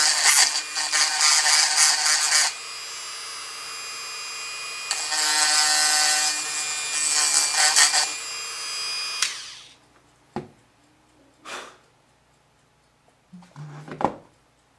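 Handheld rotary tool running with a small bit, grinding old epoxy out of a balsa-wood armature joint: a steady motor whine with loud grinding while the bit bites, easing off between bites. The motor winds down and stops about nine seconds in, followed by a few light knocks.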